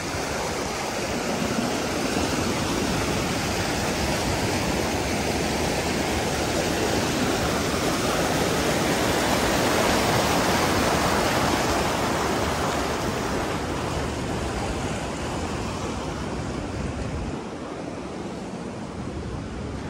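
Steady rushing of a mountain stream, growing louder toward the middle and easing off a little near the end.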